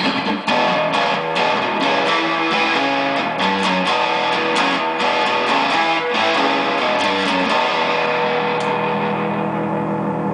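Acoustic guitar fitted with a pickup, played through a guitar amp on its distortion channel with the volume high: continuous strummed and picked chords, ending on a held chord that rings out near the end.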